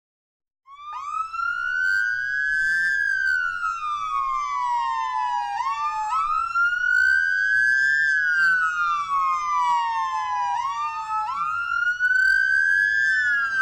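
Wailing siren starting just under a second in, its pitch rising and falling slowly about every five seconds, heard as two slightly offset tones.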